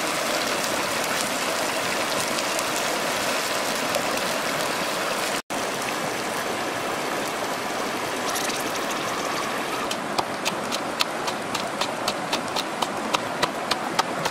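Salt and chili being pounded in a coconut-shell bowl: sharp, regular knocks, about three a second, starting about ten seconds in. A steady rushing hiss runs through the whole stretch.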